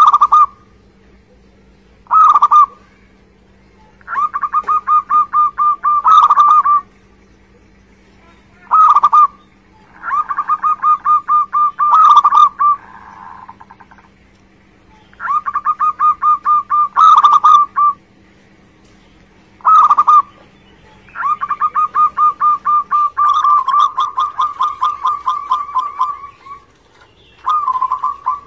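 Zebra dove (perkutut) singing its cooing song: repeated phrases of fast, evenly spaced rolling notes, some brief and some lasting several seconds.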